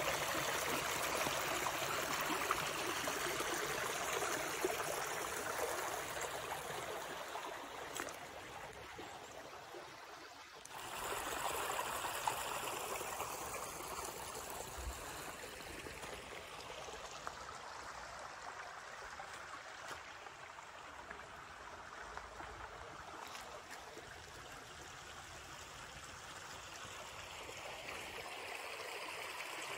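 Shallow creek water running and trickling over rock. The rush falls away briefly about ten seconds in, then comes back and grows softer.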